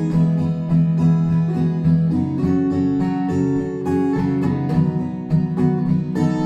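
Acoustic guitar strumming chords in a steady rhythm, with a chord change about two seconds in: an instrumental passage with no singing.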